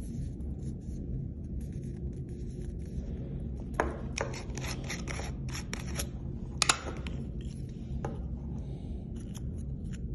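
Screw-top lid of a knife's cylindrical packaging tube being twisted off: a run of sharp clicks and scrapes from the threads about halfway through, the loudest one a little after that, and a last click about 8 s in.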